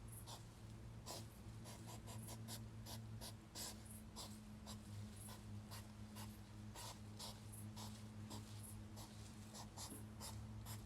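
Hedgehogs courting: faint, irregular scratchy rustles and snuffles, a few each second, over a steady low hum.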